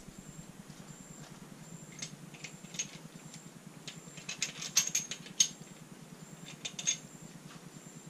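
Light metallic clicks and taps of parts being handled on a Honda B18C engine block, bunched about halfway through and again near the end, over a faint steady hum.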